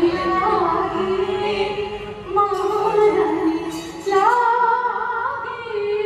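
A song with a woman singing over music, in long held, melodic phrases.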